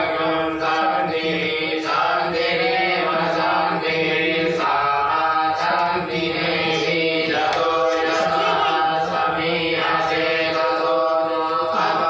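Devotional mantra chanting, sung by several voices over a steady drone.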